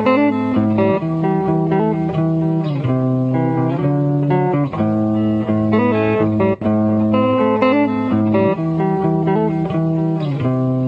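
Guitar music with plucked and strummed chords, playing steadily.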